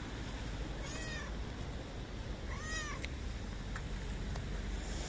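Tortoiseshell cat meowing twice, two short calls about a second and a half apart, a hungry stray's begging for food. Beneath them runs a steady low rumble.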